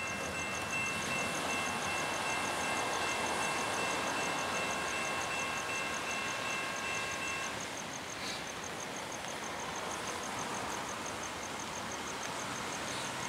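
Distant locomotive air horn of an approaching freight train led by a GE C40-8W, held as one long multi-note chord that cuts off about seven and a half seconds in, over a steady rushing background.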